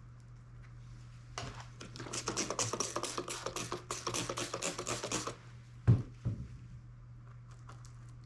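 Rapid, dense crackling clicks for about four seconds, then a sharp knock and a lighter one, over a steady low hum.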